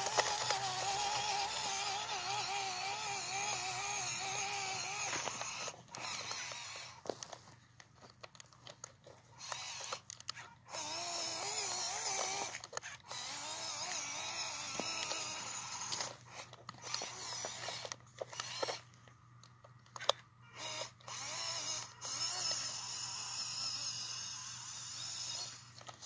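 WPL C24 RC truck's upgraded stage-3 electric motor and gearbox whining, pitch wavering with the throttle. It runs steadily for the first five seconds or so, then comes in short bursts with pauses between them.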